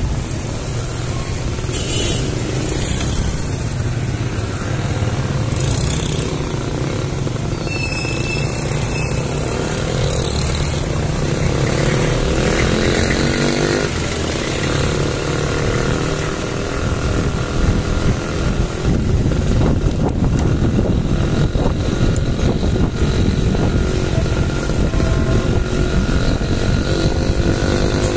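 Steady wind and road noise from riding a bicycle, picked up by a camera mounted low on the bike, with motorcycle and tricycle engines passing in the traffic. An engine's pitch rises about halfway through and again near the end.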